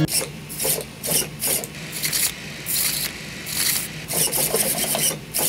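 A plastic RC drift car chassis being handled and turned in the hands: a string of short rubbing and scraping noises, about two a second.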